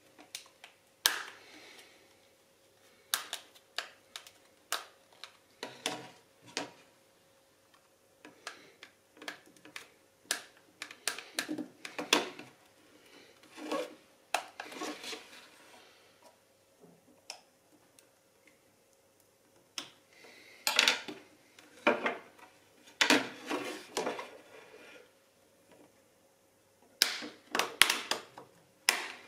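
Irregular clicks, taps and short scrapes of plastic and metal as an Alcatel 3C smartphone is handled and pried apart with a blade, some coming in quick clusters. A faint steady hum runs underneath.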